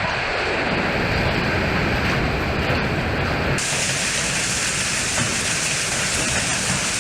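Storm wind and heavy rain in a steady roar of noise, which turns suddenly hissier and brighter about halfway through.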